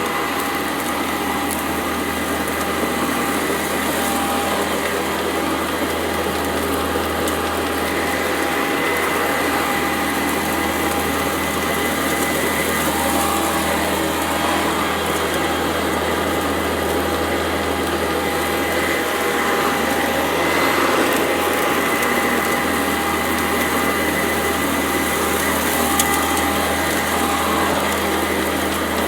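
Sanitaire SC899E commercial upright vacuum cleaner running steadily with a constant whine, crunching up grit and dirt off the floor with scattered faint ticks.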